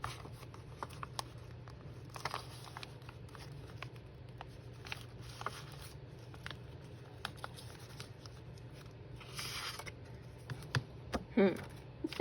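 Paper and craft supplies being handled on a table: scattered light clicks, taps and rustles, with a longer paper rustle about nine and a half seconds in and a brief pitched murmur near the end.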